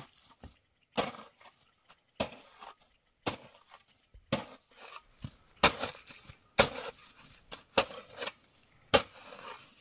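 A steel shovel digging into and scraping through a pile of sand, about one short gritty stroke a second.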